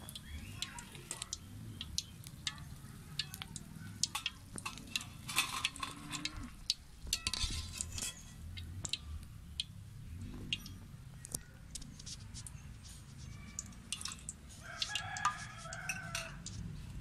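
A rooster crowing, most clearly near the end, over many sharp crackles and clicks.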